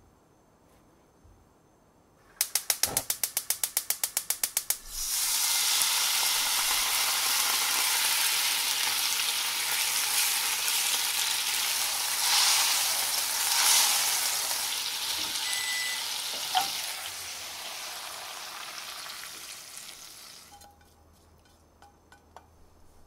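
A gas hob's spark igniter clicks rapidly, about eight times a second, for a couple of seconds. Then salt-based sauce sizzles and bubbles hard in the hot frying pan while a spatula stirs it and scrapes the browned bits off the bottom. The sizzling dies away near the end.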